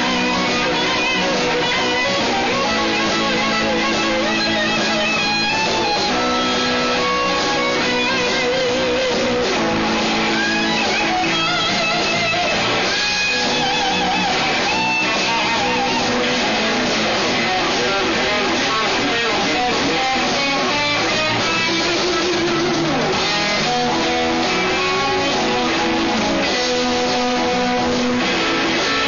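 Live electric blues band playing an instrumental shuffle: an electric guitar plays a lead of held, wavering, bent notes over rhythm guitar, bass and drums.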